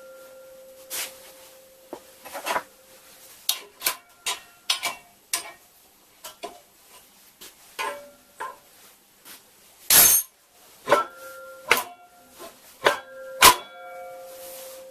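Steel parts of a home-built sheet metal folder knocking and clinking as the top jaw is handled and fitted, some knocks leaving a short metallic ring. The loudest, sharpest clank comes about ten seconds in.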